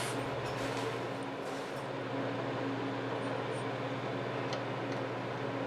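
A steady mechanical hum with a low, even tone, with a few faint small ticks over it.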